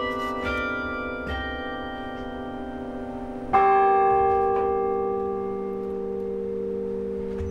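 Carillon bells of the Iowa State Campanile playing slow notes. A few notes are struck in the first second and a half, then a louder, deeper chord about three and a half seconds in and one more note a second later, all ringing on and slowly fading.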